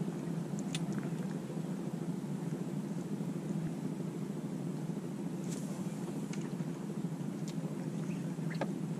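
Boat engine running steadily with an even low hum, with a few faint ticks over it.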